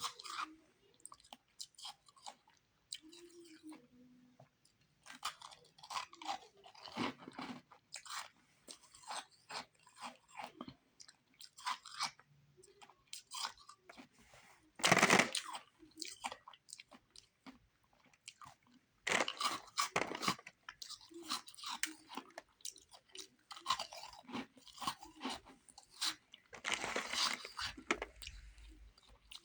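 A person biting and chewing refrozen powdery ice, with irregular, uneven crunches. The loudest bites come about halfway through, again at about two-thirds, and near the end.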